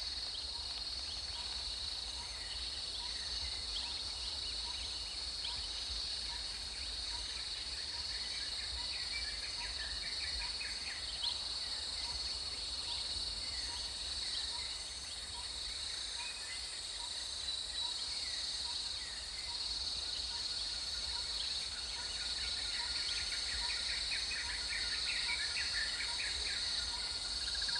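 Natural outdoor ambience of insects droning steadily at a high pitch, with scattered short bird chirps and a soft call repeated about twice a second. A steady trill comes in near the end.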